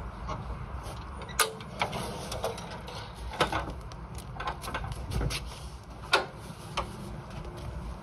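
Ratchet tie-down straps being undone on an aluminium trailer: scattered sharp clicks and clatters of the metal ratchet buckles, over a low steady rumble.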